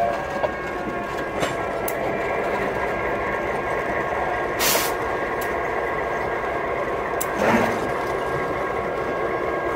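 Columbia Basin Railway EMD SD9 diesel locomotives rolling slowly past, engines running steadily, with a few sharp clicks from the wheels and running gear. Two short hissing bursts come about five and seven and a half seconds in.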